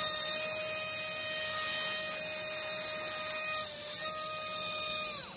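Pneumatic air pen (air scribe) running with a steady high whine and hiss. The whine dips briefly past the middle, then falls in pitch and stops near the end as the air pen winds down.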